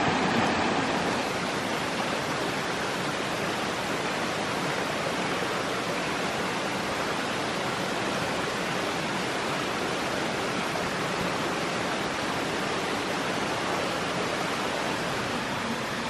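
Steady rush of a forest stream running over rocks and a small waterfall, a little louder in the first second.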